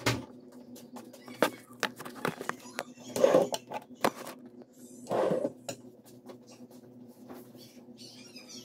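Handling noise as a phone camera is set in place: scattered clicks and taps and two short rubbing rustles, about three and five seconds in, over a steady low hum.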